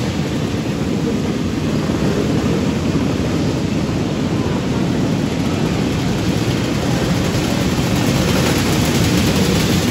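A pack of 500cc cage karts running together on a dirt oval inside a metal building, their engines making a loud, steady drone that grows a little louder near the end as the karts pass close.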